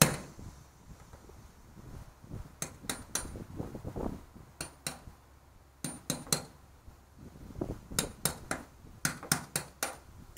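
A hammer striking a center punch to drive ground-off rivets through a school bus body panel: sharp metallic taps that come in short clusters of two to four with pauses between.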